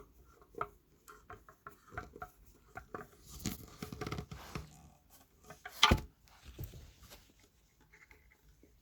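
Handling noise as a speaker is fitted by hand: scattered small clicks, taps and rustles, with one sharper knock about six seconds in.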